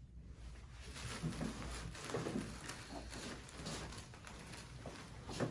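Soft, irregular rustling and shifting of a person settling on a padded treatment table, with a sharper knock near the end.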